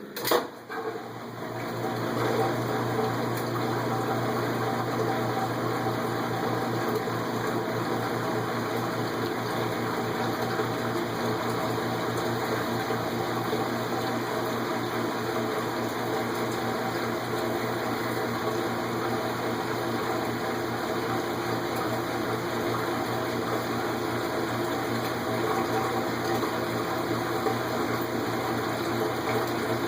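Kenmore 90 series top-load washer at the start of its spin cycle: a sharp click as it kicks in, then its motor and drain pump run steadily with a low hum, pumping water out, under the clickety sound the owner can't explain.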